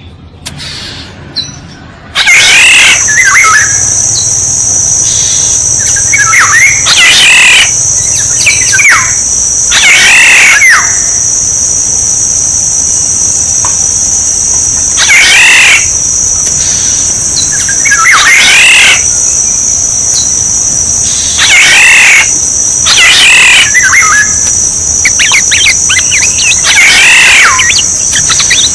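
Oriole calling loudly in short phrases repeated every couple of seconds, used as a lure call, over a steady high-pitched insect drone.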